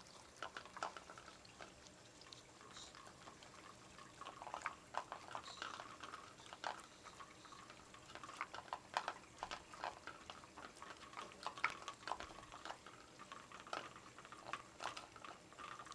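Belgian Tervuren shepherd dogs licking quark out of small plastic bowls: a run of quick, irregular licking and smacking clicks, busier from about four seconds in.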